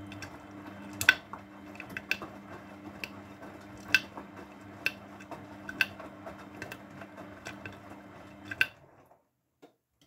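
Grundig GWM4762WE20 front-loading washing machine tumbling a wet load: the drum motor hums steadily, with sharp clicks about once a second as the drum turns. The motor stops about nine seconds in as the drum pauses between turns.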